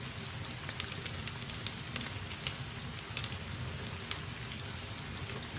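Felt-tip marker writing on paper: a soft scratching with scattered light ticks of the tip as letters are drawn, over a low steady hum.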